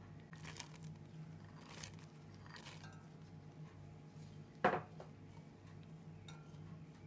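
Metal spoon clinking and scraping against a stainless steel cooking pot while rice and black-eyed peas are spooned in, with one sharp, loud clank a bit over halfway through. A steady low hum runs underneath.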